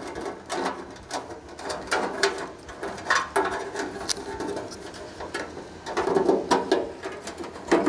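Wiring and a pellet-grill control board being handled and pushed back into the sheet-metal hopper: an irregular run of small clicks, knocks and rustles.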